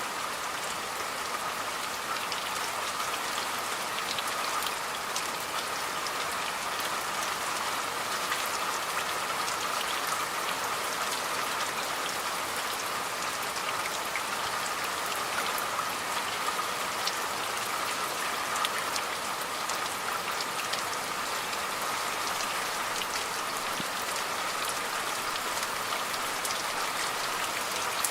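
Steady rain falling, with many small drop ticks over an even hiss.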